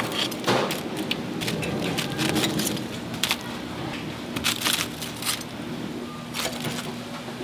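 Metal tongs clicking and crisp fried batter crunching as freshly fried pieces are set down on a stainless-steel draining tray, in irregular sharp clicks over a steady low hum.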